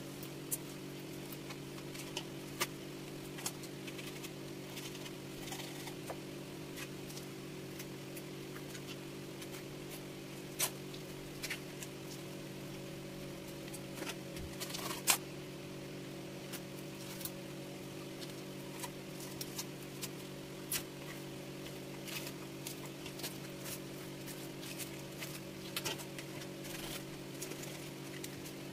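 Scattered light clicks, taps and knocks as a triggerfish is handled and cleaned on a wooden chopping block, one sharper knock about halfway through. A steady low electric hum runs underneath.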